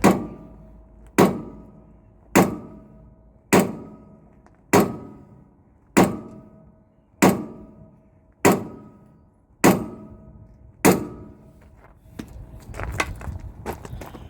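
Hammer striking the drive axle flange of a Volvo semi tractor ten times at an even pace, about one blow every 1.2 seconds. Each blow rings like metal. It is being done to shock loose the wedged cone inserts that hold the axle in. Lighter metallic clinks follow near the end.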